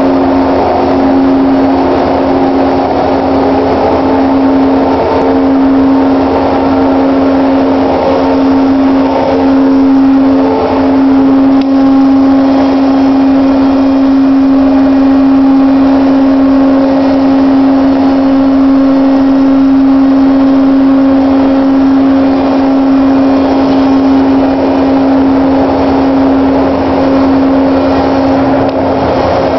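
Offshore drilling rig's drill-floor machinery running loudly and steadily, with a constant droning hum.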